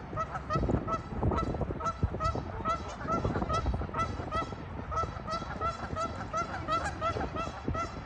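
A pair of Canada geese honking in a rapid, steady series of short calls, about three to four a second.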